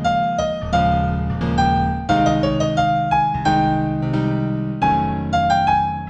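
Gentle New Age piano music in A minor: a melody of single notes struck a few times a second, each fading away, over low held chords.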